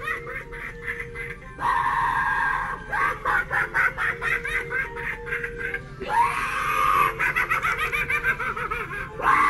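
Spirit Halloween Gorgeous George clown animatronic playing its sound track, a clown voice laughing over music, really loud, as it runs its flip-up routine.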